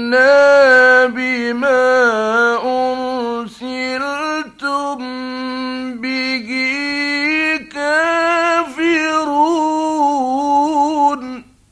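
A male Quran reciter's voice chanting in the mujawwad tajweed style: long melismatic phrases of held, ornamented notes with vibrato, climbing a little higher in pitch in the second half. The voice breaks off at the end of the phrase about a second before the end.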